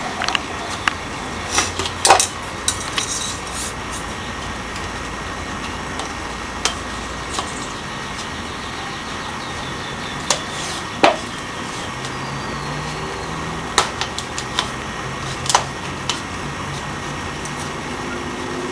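Scattered light clicks and knocks from hands fitting a paper clip and rubber band to a hard cup, irregularly spaced, over a steady background hiss.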